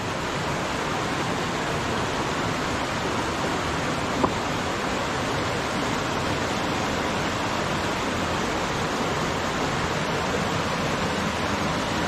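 Shallow mountain stream rushing over boulders and small cascades in a steady, even wash of water noise. A single brief tick about four seconds in.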